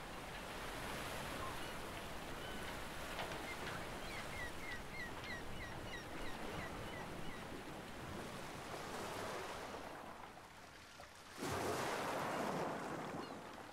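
Sea surf washing steadily on a rocky shore, with a gull giving a quick run of about ten short calls around the middle. Near the end a louder rush of breaking surf comes in suddenly.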